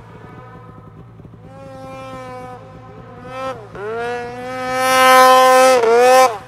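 Snowmobile engine running at high revs, its note dipping briefly twice as the throttle eases, growing much louder over the second half, then falling away sharply just before the end.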